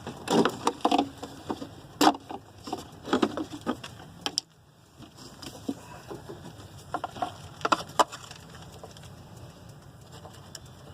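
Irregular clicks, taps and rustling of hands handling wires and connectors, with a sharp click about two seconds in and another near the end.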